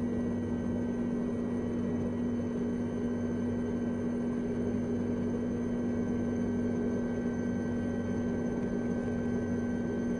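A steady low mechanical drone holding one constant pitch, with a few fainter steady higher tones over a noisy hum.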